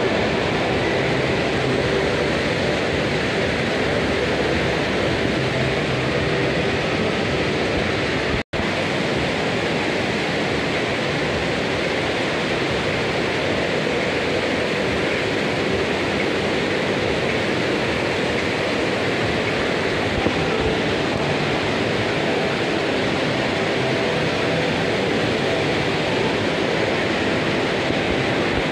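Steady rushing of water in an indoor water park's lazy-river channel, a constant even din, with a momentary dropout about eight seconds in.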